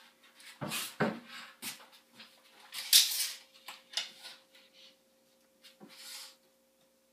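Knocks and scrapes of a wooden closet frame being worked on and fitted against a wall: a string of short, sharp sounds, the loudest about three seconds in, dying away after about six seconds.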